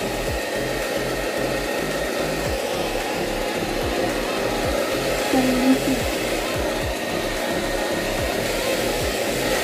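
Hand-held hair dryer (Ashley) running steadily, blowing on wet hair as it is brushed.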